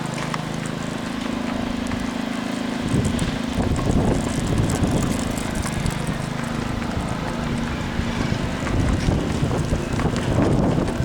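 Lawn mower engine running steadily. From about three seconds in, wind gusts buffet the microphone over it.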